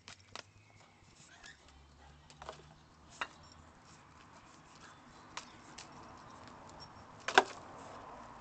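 A dog digging in dry dirt: scattered scrapes, clicks and knocks of paws and small stones, with a sharper cluster of knocks near the end.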